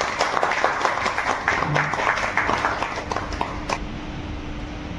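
A small group of people clapping in applause, thinning out and stopping near the end.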